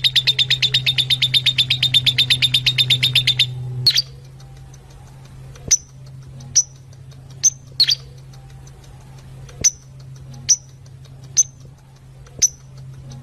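Fischer's lovebirds chirping: a fast run of shrill chirps, about ten a second, stops about three and a half seconds in. Single sharp chirps follow about once a second, over a steady low hum.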